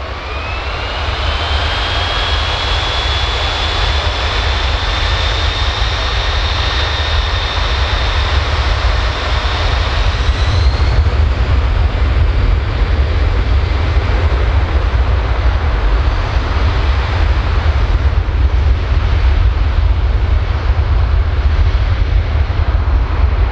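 Boeing C-17 Globemaster III's four turbofan engines spooling up to high thrust. A whine rises over the first few seconds and holds, climbs a little again about ten seconds in, then gives way to a steady heavy roar.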